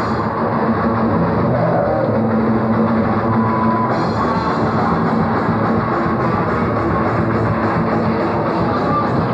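Punk rock band playing live: distorted electric guitar and drum kit, loud and dense with no break.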